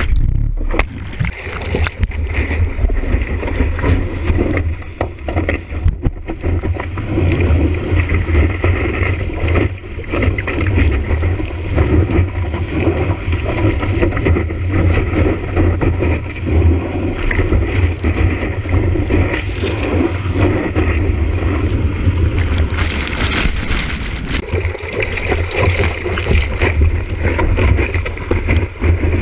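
Whitewater rushing and splashing over a surfboard-mounted action camera as the board moves through the surf, with wind buffeting the microphone and a heavy low rumble.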